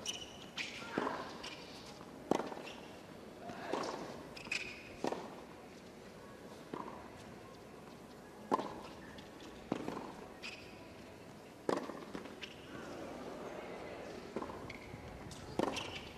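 Tennis rally: racquet strikes on the ball, a sharp crack roughly every one to two seconds, with short gaps and a pause in the middle.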